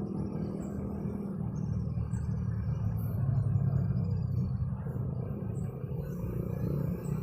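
Steady low rumble of road traffic passing by.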